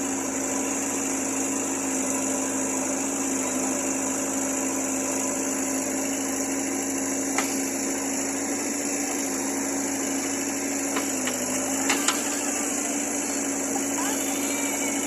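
JCB backhoe loader's diesel engine running steadily at working revs, its pitch dipping briefly under load about eleven seconds in. A few sharp clicks or knocks from the machine come around seven and twelve seconds in.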